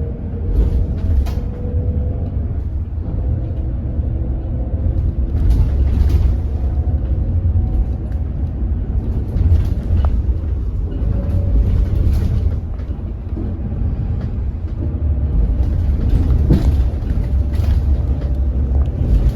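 Cabin noise of a hydrogen fuel-cell city bus under way: a steady low rumble with a faint whine from the electric drive motor that drifts up and down in pitch, and a few short rattles and hisses. The title says this motor makes a strange noise.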